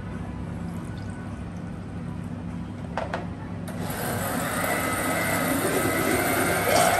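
Orange juice poured into a countertop blender jar over chopped fruit, then a click about three seconds in. Just after, the blender motor starts suddenly and runs, blending the fruit, getting louder toward the end.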